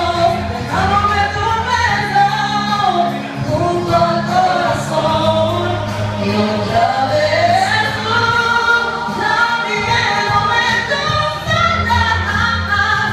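A woman singing a song into a microphone over a karaoke backing track, her voice amplified over a steady bass line.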